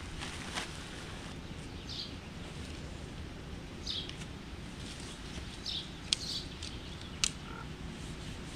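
A small bird calling outdoors: short, high chirps repeat about every two seconds over a steady low background noise. Two sharp clicks sound in the second half.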